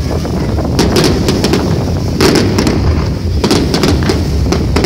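Fireworks display: many shells bursting in rapid volleys of bangs and crackles over a continuous low rumble, with dense clusters of bangs about a second in, a little past two seconds and again from three and a half seconds.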